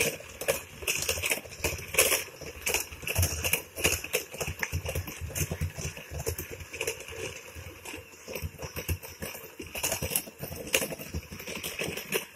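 Wooden rolling pin rolling and knocking over biscuit dough on a wooden table, then plastic biscuit cutters clattering as they are picked up and set down: a run of irregular knocks and taps.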